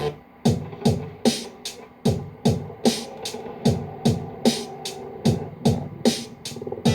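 Drum sounds from a Thundeal TDA6 playing a drum-machine-style beat with no melody: a kick that drops in pitch lands about every 0.4 s, with crisp hi-hat-like ticks between the kicks.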